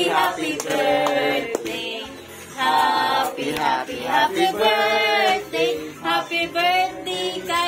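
Music with singing: sung phrases with held, wavering notes and short breaks between them.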